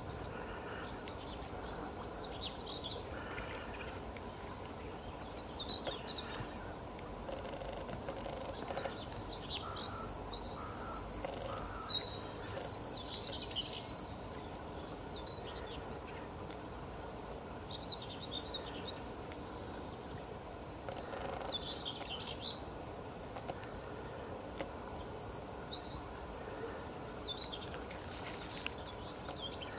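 Wild birds calling over a steady background hiss, with short scattered chirps and a very fast, high-pitched trill that comes in bouts about ten to fourteen seconds in and again near the end.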